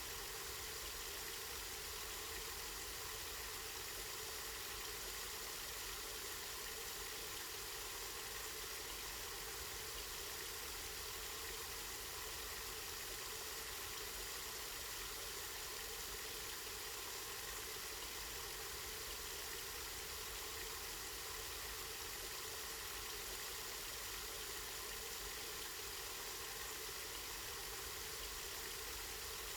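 Water from a spring running steadily, an even rush with a low rumble underneath.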